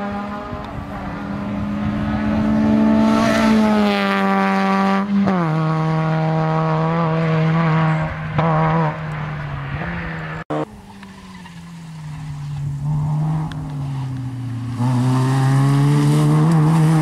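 Citroën Saxo N2 rally car's four-cylinder engine at high revs as it drives past, its pitch climbing and then dropping sharply several times as it changes gear. After a sudden cut about ten seconds in, the engine starts quieter, dips, then climbs to loud again as the car accelerates.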